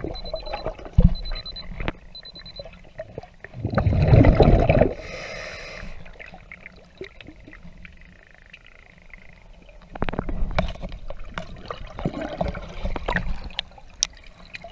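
Lake water sloshing and splashing around a camera as it moves about near the surface, with knocks and a loud rush of water about four seconds in. Three short high electronic beeps about a second apart near the start.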